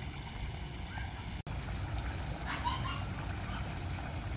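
Outdoor ambience around a swimming pool: a steady low rumble with faint, distant voices of people in the water about two and a half seconds in. The sound drops out for an instant about a second and a half in.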